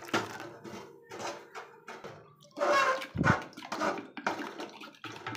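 Milk pouring into a steel bowl of beaten egg and sugar, then a wooden spoon stirring the thin batter, with irregular splashing and scraping against the bowl.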